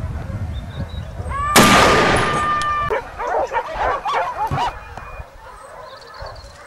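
A rifle shot about a second and a half in, its blast lingering for about a second, followed by dogs barking and yelping.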